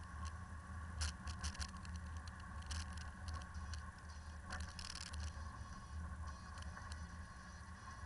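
Land Rover driving over a rough dirt-and-ice mountain track: a steady low rumble of engine and tyres, with scattered sharp clicks and rattles.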